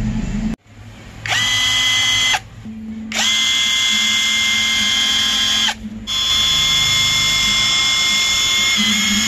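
LVDIAN cordless impact wrench, freshly cleaned and regreased, run free with no load in three trigger pulls: a steady high whine from the motor and gears, about one second, then about two and a half, then about three and a half seconds long, each winding up quickly to speed, with no hammering.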